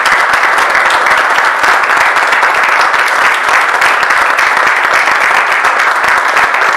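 Audience applauding: loud, dense clapping from a roomful of people.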